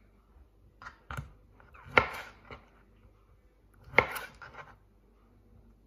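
Kitchen knife slicing through a beetroot and striking a wooden chopping board: a few sharp chops, the loudest about two seconds and four seconds in, with lighter taps between.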